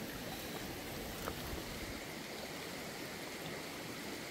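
A wok of chicken curry simmering over a wood fire: a steady bubbling hiss, with one faint crackle about a second in.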